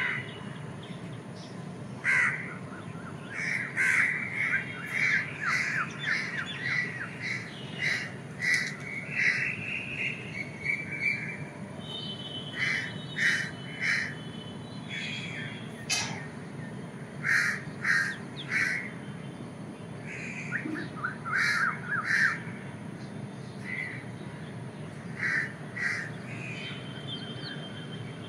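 Crows cawing over and over, sometimes in quick runs, with thinner bird chirps among them and a steady low hum beneath.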